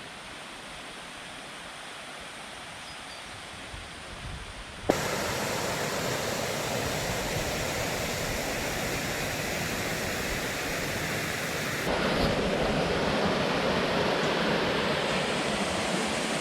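Rushing water of a rainforest creek and its cascades: a steady hiss that gets suddenly louder about five seconds in and again at about twelve seconds.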